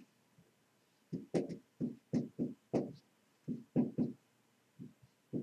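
Dry-erase marker writing on a whiteboard: a run of about a dozen short strokes and taps in irregular clusters as numbers and a fraction are written.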